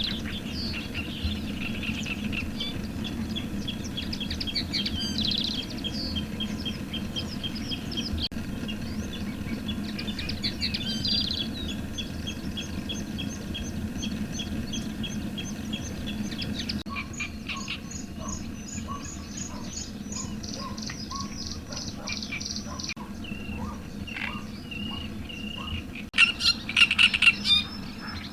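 Several birds singing and calling at once, with rapid runs of repeated chirps and trills over a steady low background noise; a louder burst of calls comes near the end.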